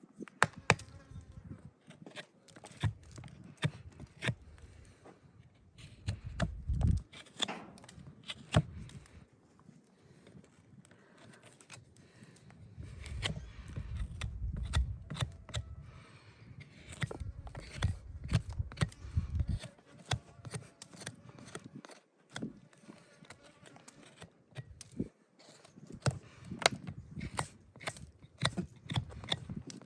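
Hind-hoof trimming: irregular sharp snaps and clicks of hoof-trimming tools cutting hoof horn, with stretches of low rumble in between.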